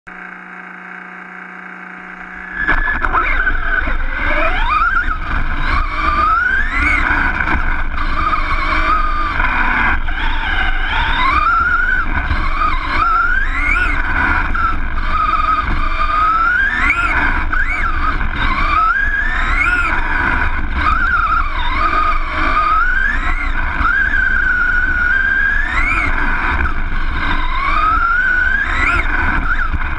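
An RC buggy's electric motor and drivetrain whine, heard from on board. The pitch climbs under throttle and drops off again about every two to three seconds as the car goes round the oval. A constant heavy rumble from the chassis and tyres on the dirt runs underneath. For the first two seconds or so there is only a quieter steady hum, then the whine comes in loudly.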